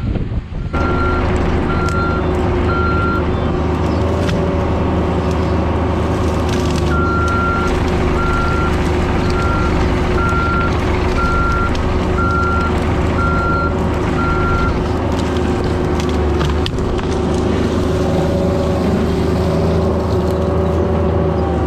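Cat 304 mini excavator's diesel engine running steadily while it digs, with scattered knocks. A backup alarm beeps about once a second, stopping about three seconds in, then starting again and running through the middle for about eight seconds.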